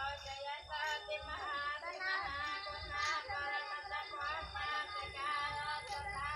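Buddhist monks reciting Dharma texts aloud in a sing-song chant to memorize them, several voices overlapping at once.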